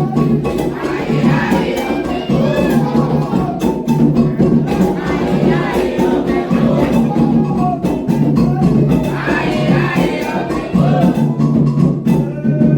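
Candomblé ritual music: atabaque hand drums beating a steady rhythm while a group of voices sings a chant to the orixás.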